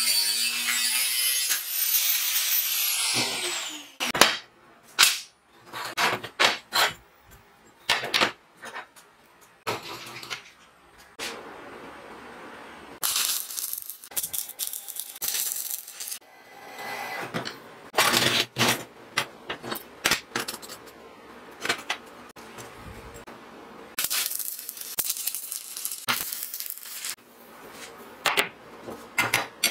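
An angle grinder cutting mild steel plate, its whine falling as the disc spins down about three seconds in. Then a run of sharp metal clicks and knocks, followed by three spells of stick-welding arc crackle as the plates are tack-welded.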